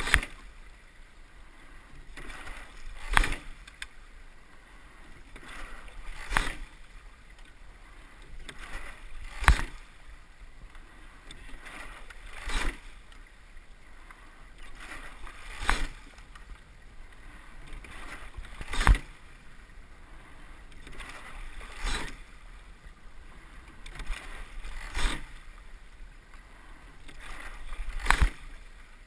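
A sculling boat being rowed at a low, steady stroke rate, about 19 strokes a minute. Each stroke brings a sharp clunk of the sculls turning in their oarlocks, ten in all, over a steady hiss of water and air.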